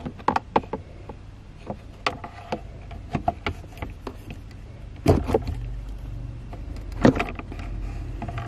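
Plastic clicks and knocks as a Toyota Alphard ANH10's cabin air filter and its white plastic cover are pushed back into the filter slot, the loudest about five and seven seconds in. From about five seconds in a low steady hum runs underneath.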